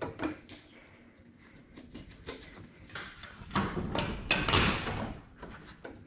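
Metal hardware handled at a garage door torsion spring's center bracket as bolts are fitted through it: a few light clicks, then from a little past the middle a louder stretch of scraping and rattling.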